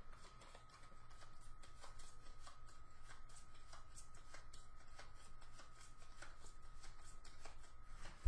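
A deck of board-game cards being shuffled by hand: a quick, even run of soft card flicks.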